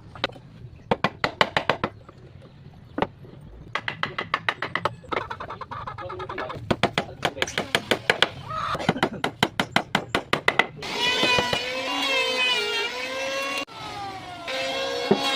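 Runs of quick, sharp knocks, like a hammer tapping on wood, for about ten seconds. Then a small electric motor whines with a wavering pitch, like a cordless drill driving screws. The motor stops briefly and starts again.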